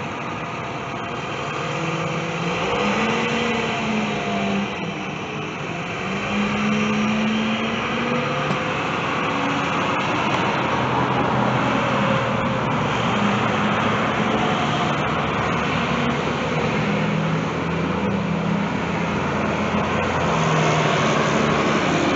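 Street traffic: motor vehicles driving on the road, with engine hum that rises and falls in pitch.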